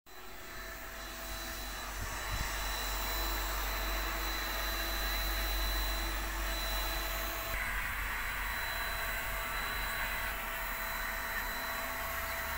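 Handheld electric paint spray gun running steadily while spraying paint onto a steel roof truss: a steady whirring hiss with a thin high whine. The sound turns brighter about seven and a half seconds in.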